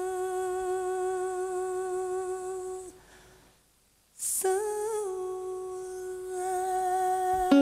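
Female fado singer's unaccompanied voice holding a long wordless note with a slow vibrato. It breaks off about three seconds in, and after a quick sharp breath she takes up a second long note.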